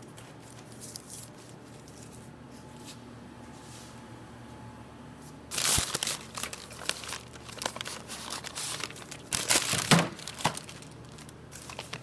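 Brown packing paper and plastic bagging crinkling as they are handled, in two bursts in the second half; the first opens with a knock.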